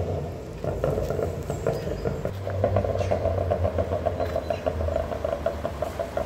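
Volkswagen Golf R's turbocharged four-cylinder engine and tuned exhaust as the car drives away, a steady low drone with a quick pulsing note above it.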